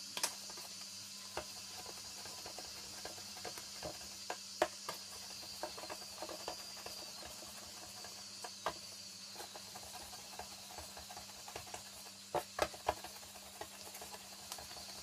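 Soft, irregular pats and taps of pieces of soft dough being rolled into balls between the palms and set down on a countertop, over a faint steady hiss.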